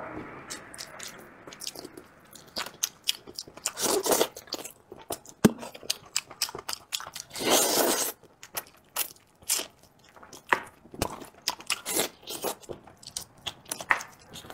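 Close-miked eating: a man biting and chewing braised duck and gnawing the meat off the bones, with many sharp wet clicks. Two longer, louder stretches come about four seconds and seven seconds in.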